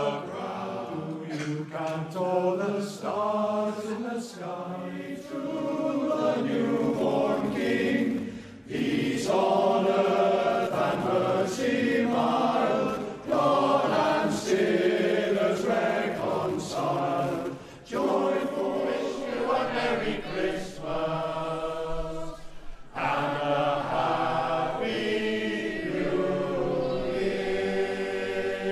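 A choir singing a Christmas carol in harmony, with long held notes and short breaks between phrases.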